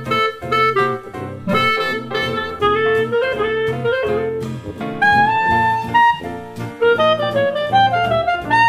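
Background jazz music with a saxophone-like melody over a steady rhythmic accompaniment.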